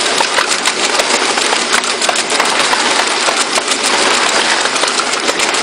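High-speed automatic flat labeling machine for lighters running: a steady mechanical clatter of fast, irregular clicks over a dense rattling noise.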